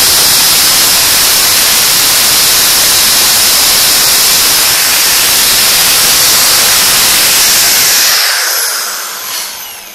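Black & Decker KR704RE 710-watt hammer drill running at full trigger speed: a loud, steady rushing noise of motor and cooling fan. About eight seconds in the trigger is released and the drill winds down with a falling whine.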